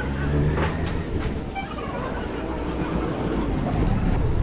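Auto-rickshaw engine running with a steady low rumble as the tuk tuk rolls along, with one brief sharp metallic clink about a second and a half in.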